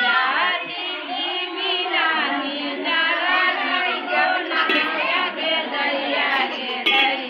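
Several women's high voices singing a song together.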